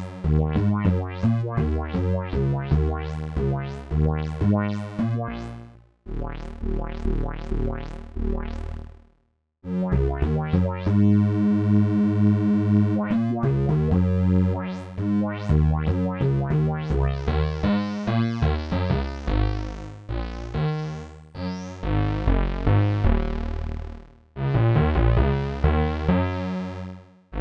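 Crumar Stratus synthesizer played on its keyboard with the synthesizer and organ sections blended together: a run of short, decaying notes and chords, with a held chord midway and two brief pauses. The organ in the mix gives it a fuzzier sound.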